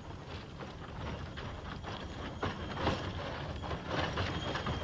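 Wooden cart pulled by a draught animal rolling along a dirt track: an irregular clatter of hoofbeats and rattling wheels and boards.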